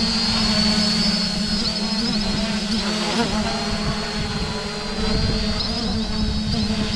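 Holybro X500 v2 quadcopter's motors and propellers buzzing steadily in a hover. The high motor whine wavers briefly several times as the autotune twitches the drone during its roll angle P tune.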